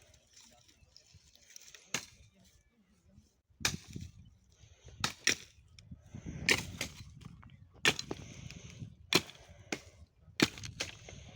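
Sharp wooden knocks and cracks from mesquite (algaroba) stumps and roots being broken up and handled for firewood: about ten strikes at uneven intervals, with rustling between them.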